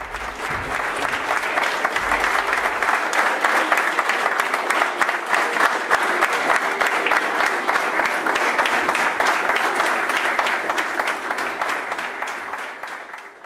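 Theatre audience applauding, many hands clapping steadily, dying away near the end.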